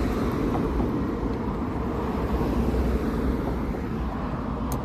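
Steady low rumble of road traffic, an even noise of passing cars with no single event standing out.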